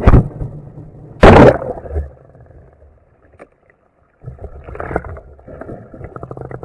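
A thump, then a loud splash about a second in as the camera plunges into the river; after a short near-silent gap, muffled underwater rumbling with faint rapid clicks.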